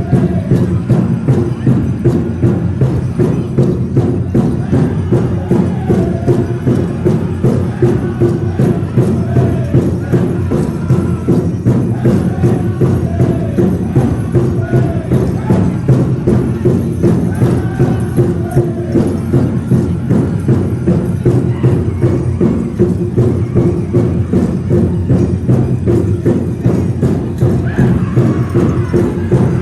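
Powwow drum group: a large powwow drum struck in a steady, even beat by several drummers, with the singers' high wavering voices chanting over it.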